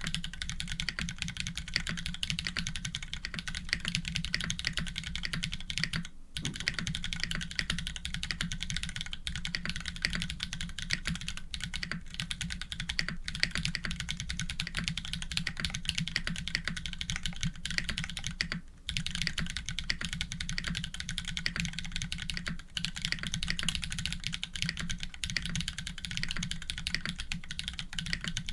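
Fast continuous typing on an Orion v2.5 custom mechanical keyboard with Holy Panda tactile switches, GMK Monochrome keycaps on an FR4 plate, and Cherry stabilizers. The keystrokes come thick and steady, with two short pauses, one about six seconds in and one near nineteen seconds.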